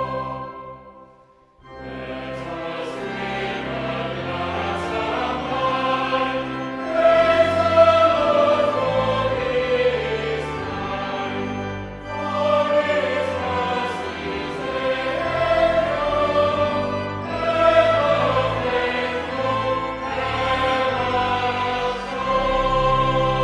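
A choir singing a hymn with instrumental accompaniment. The music fades almost to nothing about a second and a half in, then starts again.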